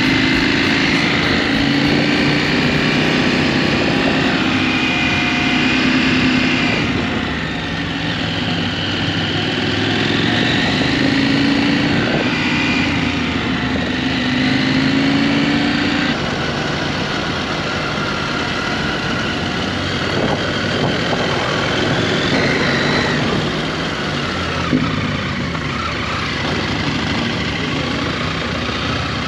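KTM 890 Adventure R's parallel-twin engine running under way, its pitch rising and falling with the throttle, over steady wind noise on the microphone. From about the middle it settles lower and a little quieter.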